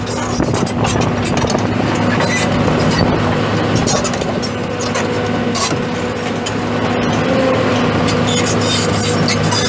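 John Deere 200C LC excavator's 6.8 L six-cylinder turbo diesel running steadily, with scattered sharp clicks and clanks over it.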